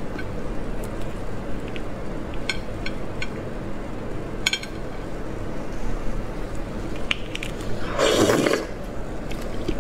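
A large cooked red shrimp's shell being twisted and peeled by hand, with scattered small cracks and crackles. About eight seconds in comes one loud slurp as the shrimp's head is sucked.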